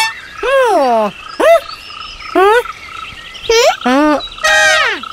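Cartoon character gibberish voices: about five short, high-pitched vocal exclamations, most sliding down in pitch.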